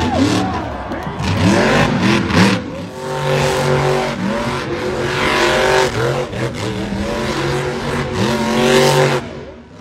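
Monster truck engine revving: quick rising and falling blips, then held at high revs several times, falling away near the end.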